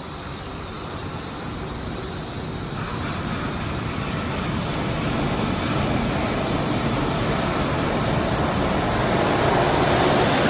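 Suspended monorail train approaching and pulling into the station: a steady rushing rumble that grows louder throughout, mixed with road traffic.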